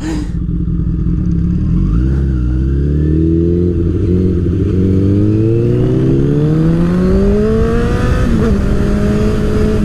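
Honda CBR1000RR's inline-four engine through its Hyperflo exhaust, accelerating. The engine note climbs steadily for about six seconds, drops at a gear change near the end, then holds steady.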